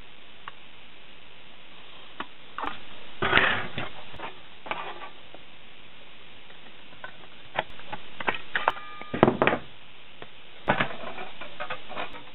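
Hand metal shears cutting thin sheet metal: three bursts of crunching, clicking snips, with some ringing of the sheet in the middle burst.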